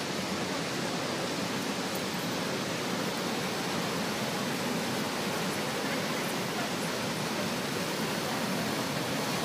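Steady, even rushing noise of Niagara's Horseshoe Falls and the rapids pouring over its brink, with no let-up.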